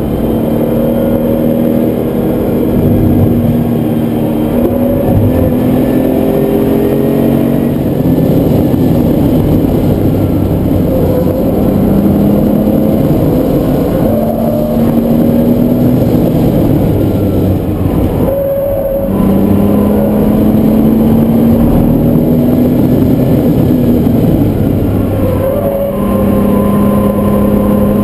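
Air-cooled Porsche 911 flat-six engine pulling hard under load at track speed, its pitch climbing in long runs. The note breaks briefly for a gear change about two-thirds of the way through, and again near the end.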